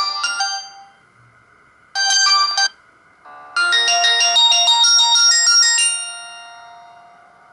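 Stock polyphonic ringtone of a Samsung GT-E2120 phone playing bright electronic melody notes. One phrase fades out in the first second. After a pause, a short burst of notes comes about two seconds in, then a longer phrase whose notes ring on and die away over about two seconds.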